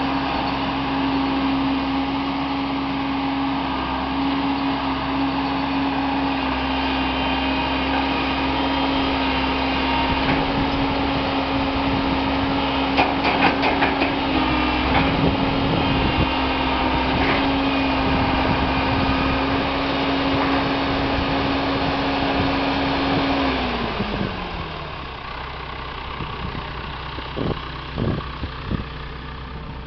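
Ford/Versatile 276 tractor's four-cylinder diesel engine running steadily at raised revs while the loader is worked, then dropping to a slower idle about three quarters of the way through. A few short knocks come near the middle and again near the end.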